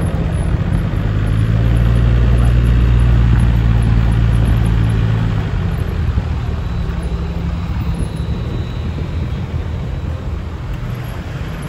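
Off-road 4x4 driving slowly over a gravel track, heard from inside the cabin: a steady low engine and tyre rumble that swells deeper and louder about a second in and eases off after about five seconds.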